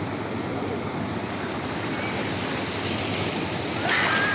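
Ocean surf washing continuously onto the beach, with a brief louder rush of breaking water near the end.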